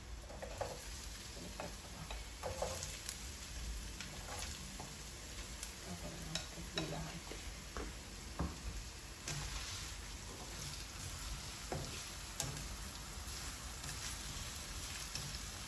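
Diced onions and green chili sizzling in oil in a nonstick wok as they are sautéed to soften, with scattered scrapes and taps of a slotted spatula stirring them.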